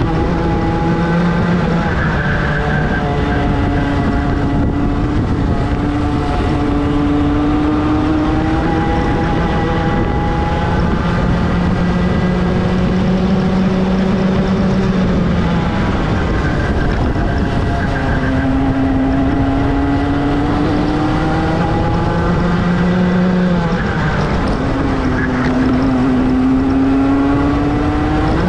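Rotax two-stroke racing kart engine at full throttle. Its pitch climbs steadily for several seconds at a time and drops back sharply a few times as the kart slows and accelerates again, over a constant rush of noise.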